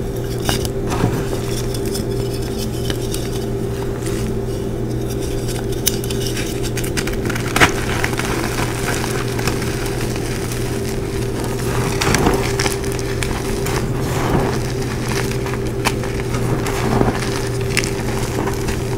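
Blocks of gym chalk crushed and crumbled by hand into a heap of chalk powder: soft, scattered crunching and crackling, with a sharper snap about eight seconds in and again about twelve seconds in. A steady low hum runs underneath.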